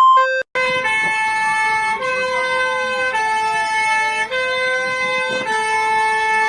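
Electronic emergency alert alarm tones. A repeating beep pattern stops about half a second in, and after a short break a new alarm starts: a chord of steady electronic tones that changes pitch every second or so, with a siren-like tone sweeping slowly up and down through it.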